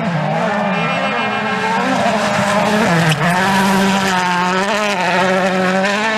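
Rally car engine running hard at high revs, its pitch falling and climbing through gear changes, with a brief lift about three seconds in before it holds steady.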